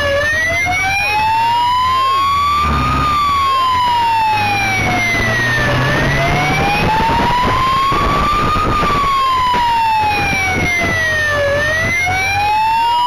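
Police motorcycle siren wailing, its pitch rising for about three seconds and falling for about three, twice over, with the motorcycle's engine running underneath.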